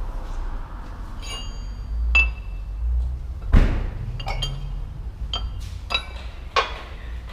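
Metal tools or parts clinking together, about eight light strikes, several of them ringing briefly. One heavier knock comes about three and a half seconds in.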